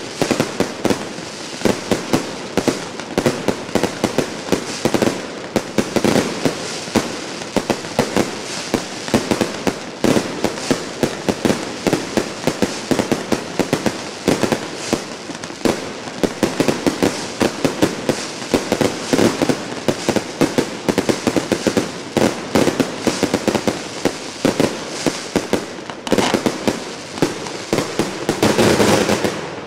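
Professional fireworks display: a continuous barrage of bangs from bursting aerial shells, many reports a second, building to a denser, louder flurry near the end.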